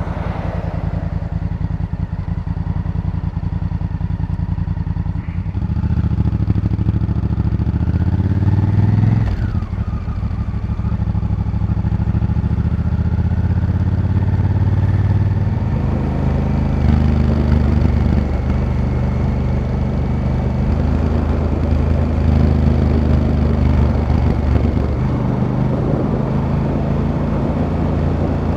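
Honda Africa Twin CRF1000L's parallel-twin engine running under way, the revs climbing and then dropping several times as it shifts through the gears, with a rising pull and a sharp drop about nine seconds in.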